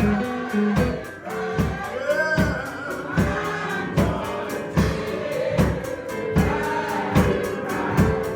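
Live gospel music: a church band with a steady drum beat, and voices singing held notes over it.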